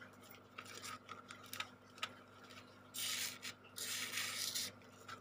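Fingertips rubbing loose coloured sand onto a sticky sand-painting card. A few light scratches and taps are followed by two longer scraping rubs a little past halfway, the second about a second long.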